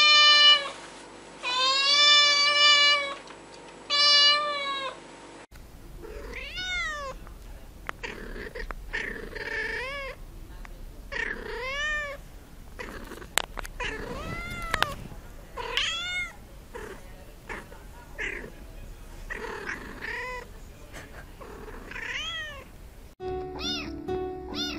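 Domestic cats meowing in a run of separate clips: first three long, even meows, then a dozen or so rising-and-falling meows one after another, and near the end quick, short kitten meows with music under them.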